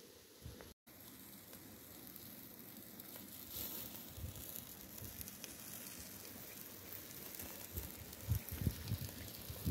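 Faint sizzling and crackling from chicken roasting on a wooden skewer over ash-covered charcoal embers, with a few low thumps near the end.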